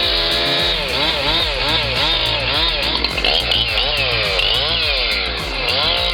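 A small engine revving up and down again and again, its pitch swooping in quick rises and falls about twice a second.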